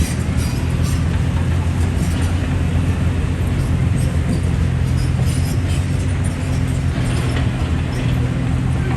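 Heavy diesel engine of a bulldozer or excavator running steadily under load, with a few light clicks over it.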